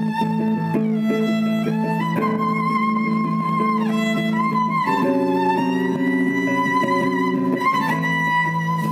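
Violin played with the bow: a melody of long held notes with vibrato, over a lower sustained accompaniment that changes chord about five seconds in.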